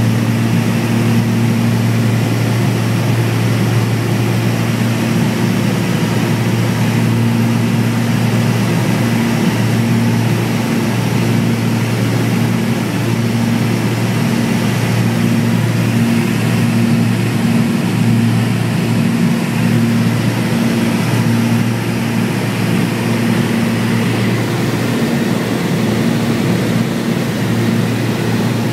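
Cessna's engine and propeller droning steadily, heard from inside the passenger cabin, with a low hum and a faint, even pulsing beat above it.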